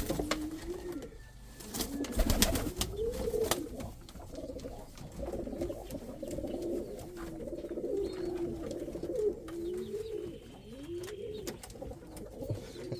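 Domestic pigeons cooing steadily in a loft, the overlapping calls rising and falling in pitch, with a few sharp knocks near the start.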